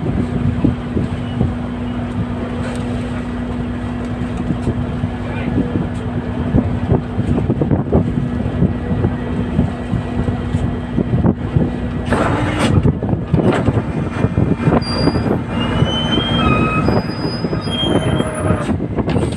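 Fishing vessel's engine and deck machinery running loudly, a continuous drone with rattling and knocking. A steady hum stops about twelve seconds in, after which the clatter grows louder and short high squeaks come and go.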